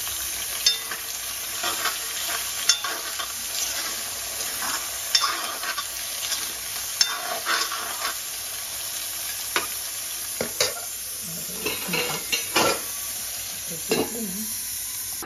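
Potato wedges sizzling in hot oil in a cast-iron wok, with a steel ladle scraping and clinking against the pan as they are stirred. A metal lid is set on the wok near the end.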